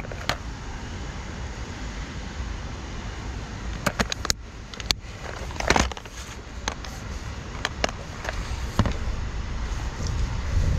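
Scattered sharp clicks and taps of fishing tackle being handled while a lure is swapped, with a small cluster of them about four to six seconds in, over a steady low rumble.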